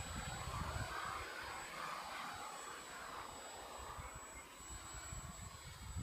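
Radio-controlled Sukhoi aerobatic model plane in flight, its motor a faint buzz that swells and fades as the plane manoeuvres.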